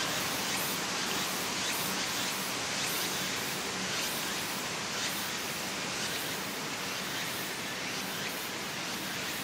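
Hot-spring steam vent hissing steadily as a dense column of steam rushes up out of a rock bed.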